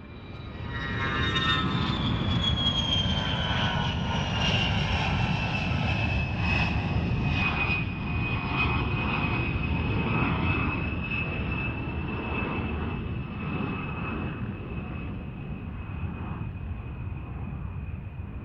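Jet aircraft engines running: a high whine slides down over several seconds and then holds steady over a low rumble.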